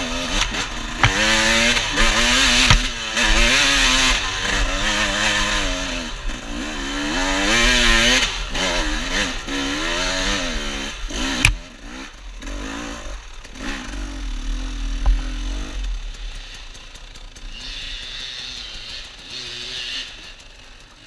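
Enduro dirt bike engine revving up and down hard as the bike is ridden along a rough trail. About halfway through there is a sharp knock, after which the engine runs quieter at low revs with a few short rises.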